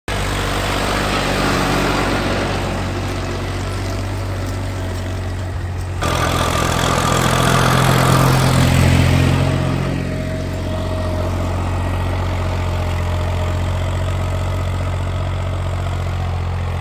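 New Holland 3030 tractor's three-cylinder diesel engine running steadily under load while pulling a seed drill. It is louder and closer between about six and ten seconds in.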